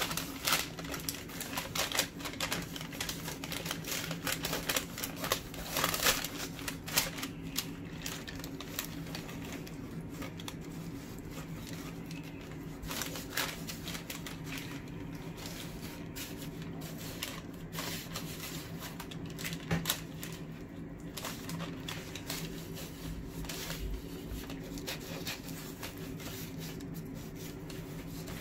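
Hands rubbing oily spice paste into whole sea bass on a paper-lined baking tray: the baking paper crinkles, and quick clicks and taps come thick in the first seven seconds or so, then sparser. A low steady hum runs underneath.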